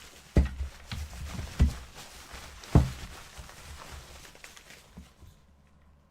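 Saber hilts and their packaging being handled and unwrapped: rustling with several dull thumps, the loudest nearly three seconds in. It settles to quieter handling about five seconds in.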